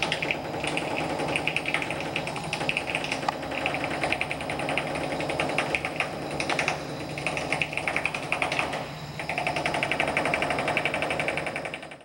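Rapid rattling hammering in runs of one to three seconds with short breaks: a chipping hammer knocking dried concrete out of a concrete mixer truck's drum, over a steady low engine hum.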